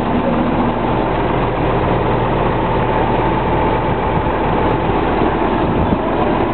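John Deere 7720 tractor's diesel engine running steadily, loud and close.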